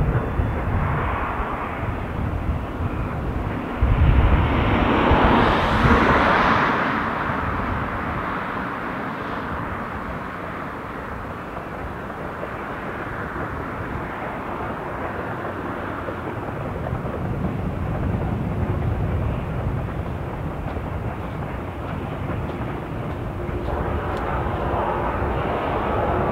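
Narrow-gauge steam train running, a continuous rumble that swells about four to six seconds in and again near the end.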